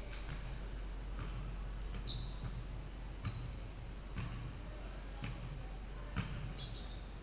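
Basketball being dribbled on a hardwood gym floor, faint thuds about once a second, with two short sneaker squeaks.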